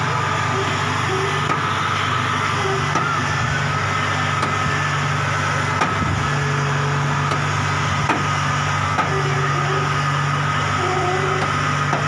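Kubota DC70 rice combine harvester's diesel engine running steadily as the tracked machine climbs the loading ramps, with a steady high whine over the engine and a few sharp knocks about halfway through.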